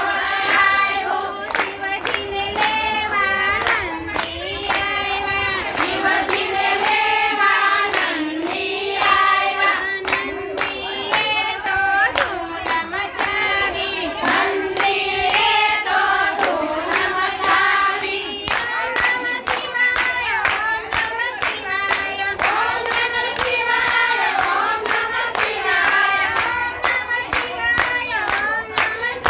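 A group of women singing a devotional song together, clapping their hands in time with the beat. The claps come faster and more steadily in the second half.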